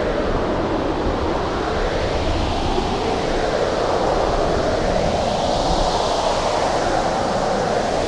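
Blizzard wind blowing hard and steadily: a dense rushing noise with no whistle or gusting breaks, its hiss swelling slightly about two-thirds of the way through.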